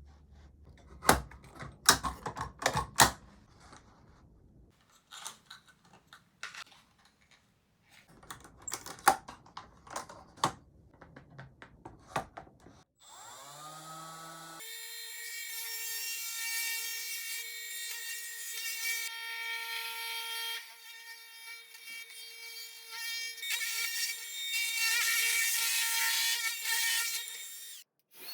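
Wooden parts and tools handled with sharp clicks and knocks. About halfway through, a trim router motor spins up with a rising whine and runs with a steady high-pitched whine, its tone shifting a few times, before cutting off near the end.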